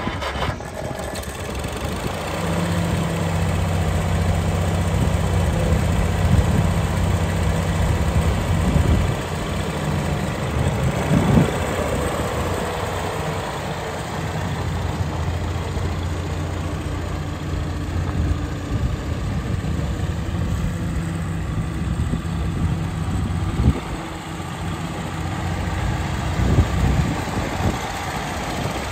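Massey-Harris Pony tractor's small four-cylinder engine running at a low, steady speed as the tractor is driven, its note wavering a few times as the speed changes.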